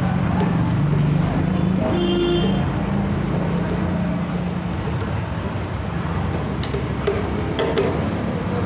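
A motor vehicle engine running, a steady low hum that fades somewhat after about five seconds, with a couple of light clicks from hand tools near the end.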